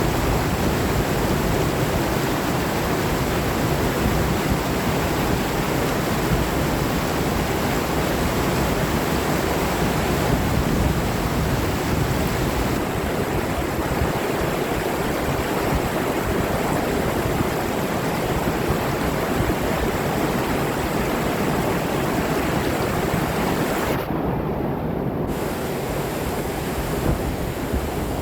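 Steady rushing water with wind, a continuous dense noise without breaks.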